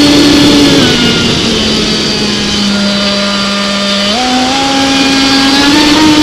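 Fast-electric RC speedboat's motor whining at speed over the rush of the hull on the water. The whine drops in pitch over the first couple of seconds as the boat slows, then rises again in steps from about four seconds in.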